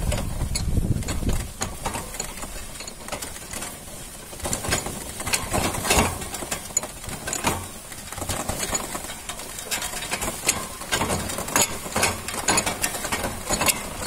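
Wooden bullock cart rolling along, its wooden spoked wheels and timber body creaking, clattering and knocking in an irregular run of clicks.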